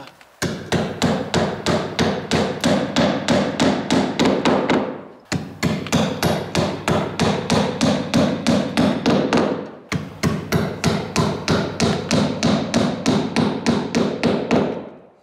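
Power tool hammering in rapid, even impacts, about five a second, in three runs of about five seconds each, driving screws into a sliding glass door's frame.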